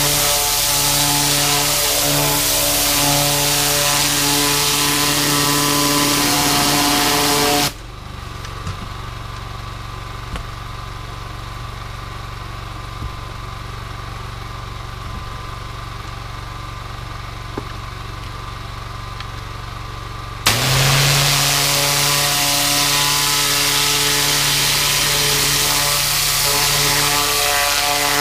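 Engine-driven 4,000 PSI pressure washer with a zero-degree tip, spray hissing hard against a wet deer hide with the engine running under load. About 8 seconds in the trigger is released: the spray stops and the engine runs on more quietly. About 20 seconds in the spray comes back on suddenly and the engine works harder again.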